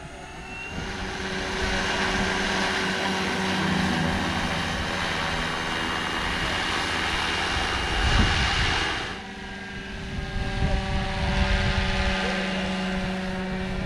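Radio-controlled scale model helicopter's rotors and drive whining up and lifting off, then hovering and climbing away. The steady whine and rotor rush swell about a second in. There is a brief loud low rush near eight seconds, and the sound drops back just after nine seconds.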